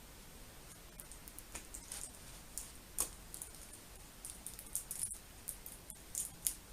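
Small child scissors snipping and clicking against plastic packaging, in scattered light clicks and snips while the packaging is worked open.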